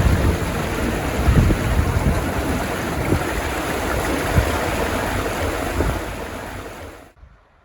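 Strong wind rushing and buffeting over the microphone in gusts, fading and then cutting off abruptly near the end.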